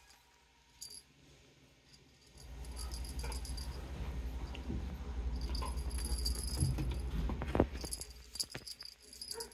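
Wand cat toy jingling and rattling as kittens bat and tug at it, starting about two seconds in, over a low rumble, with a sharp knock late on.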